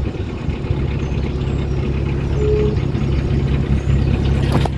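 Narrowboat's diesel engine running steadily, a low even drone. There is a short knock near the end.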